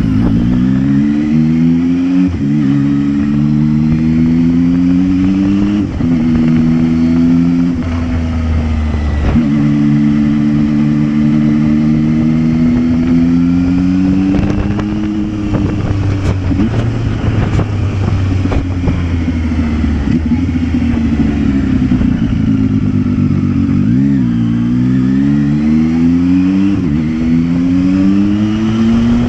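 Zontes 703F's three-cylinder engine through its stock exhaust, heard from the saddle while riding: it revs up and shifts gear several times, each rise in pitch followed by a short drop. About 24 seconds in it falls away and then pulls up through the gears again. Wind noise runs underneath.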